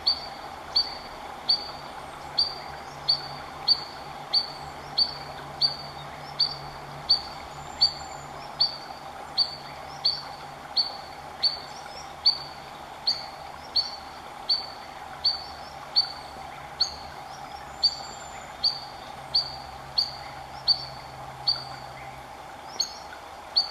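Spotted sandpiper giving alarm calls for an intruder near its fledglings: a short, sharp high note repeated evenly, about every 0.7 seconds, over a steady background rush.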